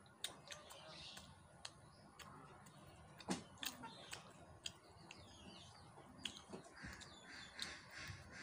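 Faint mouth sounds of eating: scattered chewing clicks and smacks, a few of them sharper, with birds chirping and calling in the background, more of them in the second half.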